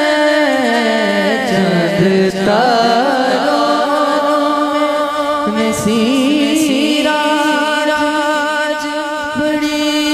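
A male naat reciter sings into a handheld microphone, drawing out long wordless phrases that waver and glide in pitch, then holds one steady note near the end.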